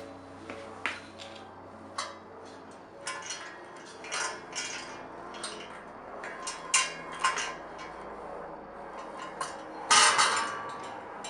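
Steel pieces being handled, knocking and clinking against each other and against metal in a series of irregular sharp clanks with a short ring, the loudest cluster about ten seconds in.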